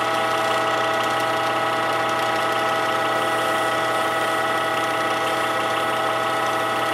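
Wood lathe running at a steady speed with an even, unchanging hum and whine, while folded waxed paper is pressed hard against the spinning pen blank to friction-polish the wax.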